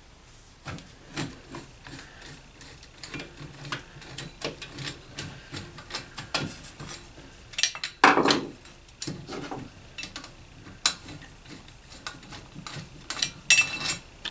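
Metal clicks, scrapes and knocks as the end cover of a rotary vane vacuum pump's metal housing is unscrewed and worked loose by hand and with a small tool. There are louder clusters of clatter about eight seconds in and again near the end.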